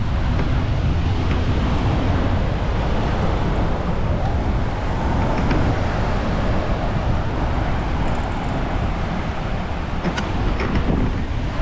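Steady low rumble of wind buffeting the microphone during a bicycle ride, with a few faint clicks about ten seconds in.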